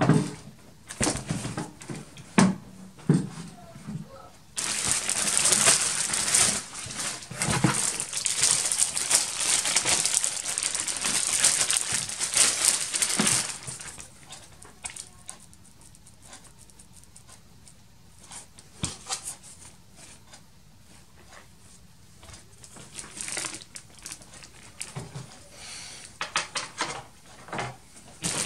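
Clear plastic packaging bags crinkling and rustling as parts are pulled out of a box, loudest in one long continuous stretch from about five to thirteen seconds in, with scattered light knocks and shorter rustles around it.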